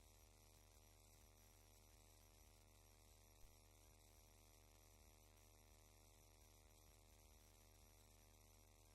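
Near silence: a faint steady electrical hum with a stack of buzzing overtones, and one small click about three and a half seconds in.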